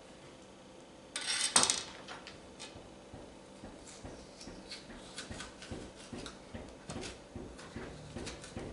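Kitchen knife cutting into a butternut squash on a cutting board: a loud scrape ending in a sharp knock about a second and a half in, then a run of small cuts and taps, a few a second.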